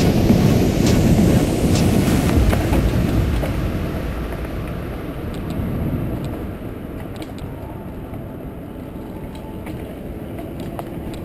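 Mountain bike riding downhill, recorded on a bike- or helmet-mounted camera: wind buffeting the microphone and knobby tyres rumbling over a gravel track, with scattered sharp rattles and clicks from the bike. The rumble is loud at first and eases off from about four seconds in, as the trail turns to a shaded dirt singletrack.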